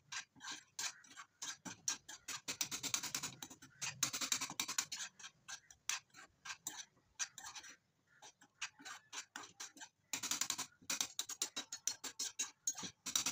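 A spatula knocking and scraping against a frying pan as scrambled eggs are chopped and stirred: quick irregular clicks, several a second, with longer scraping passes.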